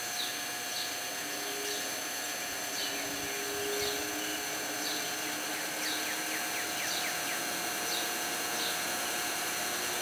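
Old Breezemaker box fan running steadily, its motor humming under the whoosh of the blades. Birds chirp faintly in the background.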